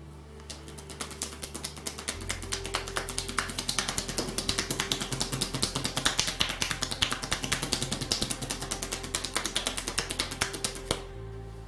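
Rapid, rhythmic slaps of hands striking a bare back: massage tapotement, hacking and cupping strokes. They start about half a second in and stop about a second before the end, over soft background music.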